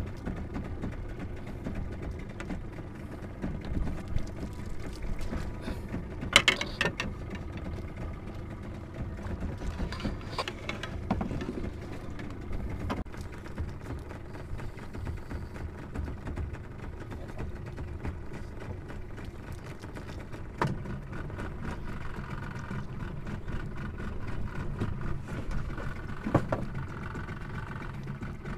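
Spinning fishing reel being wound, a mechanical whir of its gears, with a few sharp knocks over a steady low background noise.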